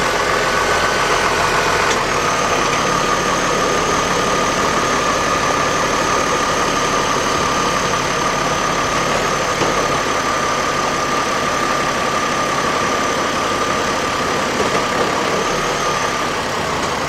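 2003 GMC Envoy's 4.2-litre inline-six idling steadily just after start-up while it warms up, with a steady high-pitched whine over the engine sound.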